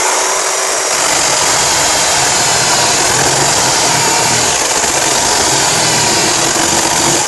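Eckman LHT05 18-volt cordless electric chainsaw running at full speed and sawing through a thick branch: a loud, steady motor and gear whine with the chain rasping through the wood.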